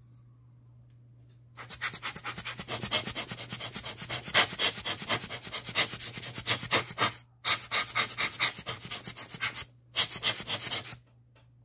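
Rapid rhythmic rubbing or scraping strokes, about eight a second, in three runs broken by two short pauses, from hand work on a small loudspeaker during a dust cap repair.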